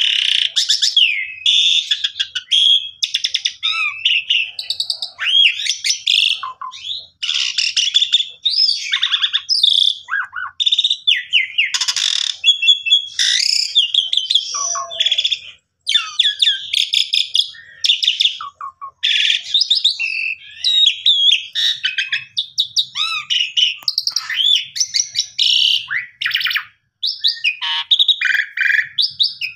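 A Javan pied starling (jalak suren) singing a long, varied song. Loud whistles and slurred rising and falling notes are mixed with rapid chattering rattles, with only brief pauses.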